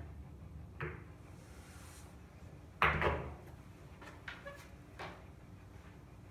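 Pool balls knocking on a pool table: a click about a second in, a louder knock with a short rattle near three seconds, then a few lighter clicks around four and five seconds.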